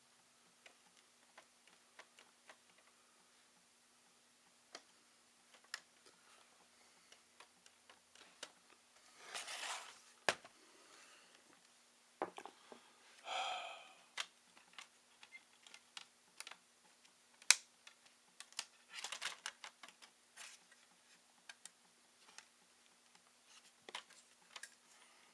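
Small, scattered plastic clicks and taps from a laptop being handled and worked on during disassembly, with a few short, louder scraping or rustling handling sounds, over a faint steady hum.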